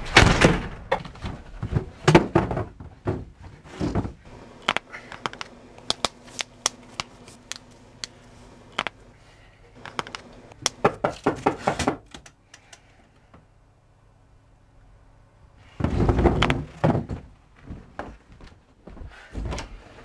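A door bangs shut, then irregular clicking of typewriter keys being struck. Near the end comes a short run of loud knocks on a wooden door.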